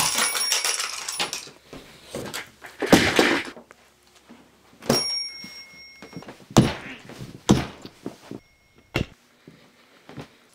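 An alarm clock being smashed: about six hard hits and crashes spread over ten seconds, a few of them followed by a brief metallic ring.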